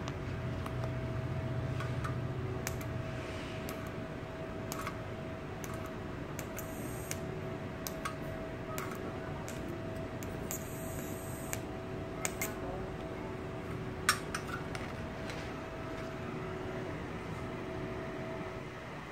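Steady hum of a small running fan, with scattered light clicks and one sharper click about three-quarters of the way through.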